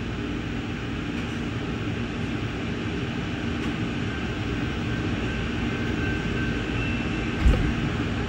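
Passenger train running as it pulls away from a station, heard from aboard: a steady low rumble of wheels and traction that slowly grows louder, with one short thump about seven and a half seconds in.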